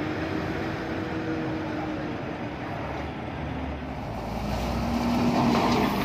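Gurm combine harvester's diesel engine running steadily, getting louder from about four seconds in.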